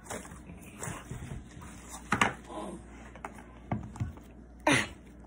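Hands handling a small plastic slime container and working at its lid: scattered light knocks and clicks, with one louder brief scrape or rustle near the end. A faint murmured voice comes in briefly midway.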